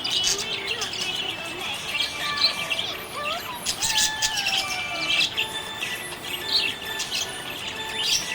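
Budgerigar chirping and warbling: a busy, unbroken run of short chirps and sliding whistled notes.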